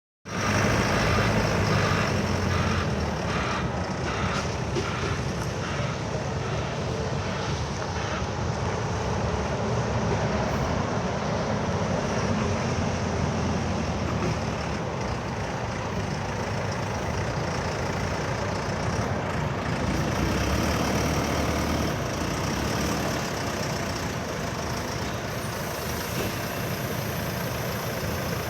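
JCB 3CX backhoe loader's diesel engine running steadily. A run of light regular ticks, about two a second, sounds between two and eight seconds in.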